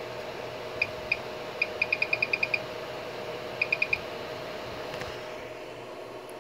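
Maker Select 3D printer's control knob being turned to feed filament, giving short high pips: a few single ones, then a quick run of about eight, then four more. Under them is the steady hum of the printer's cooling fan.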